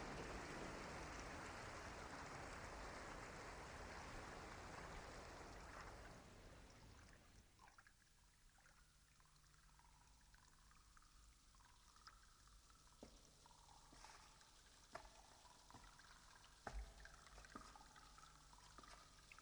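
Near silence: a faint rushing noise fades away over the first seven seconds, leaving only a faint low hum and a few scattered faint ticks.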